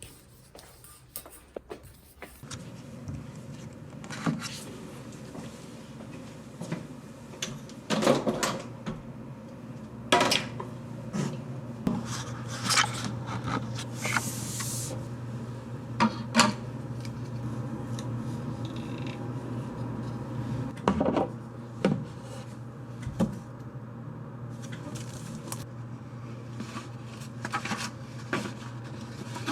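Steady low hum with scattered knocks and clicks of objects being handled, and a brief hiss about halfway through.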